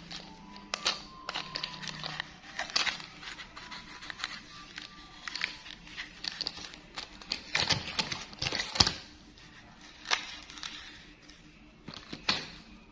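Hard plastic building-block toy train parts being pulled apart and handled: scattered clicks, snaps and knocks of plastic on plastic, with a dense run of sharper clicks a little past halfway and the loudest snap about two-thirds of the way through.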